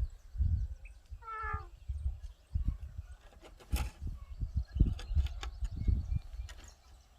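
Farm gate moving on its hinges: a short, pitched creak from the hinge about a second in, a sharp clack near the middle, and repeated dull low thuds throughout.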